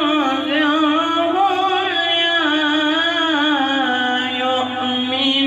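A boy's voice reciting the Quran in Arabic in melodic tajweed style, holding long notes that waver and bend through ornamented turns with hardly a pause.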